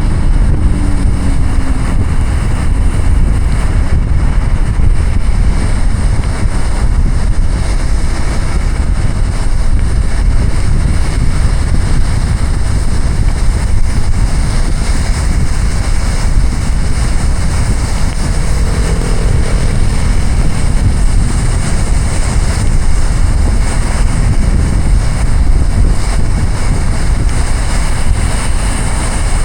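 Car driving through heavy rain: a loud, steady, deep rush of rain and tyres on the wet road.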